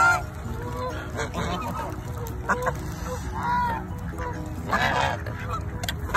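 Geese honking several times, separate arched honks a second or two apart, amid a crowd of waterfowl.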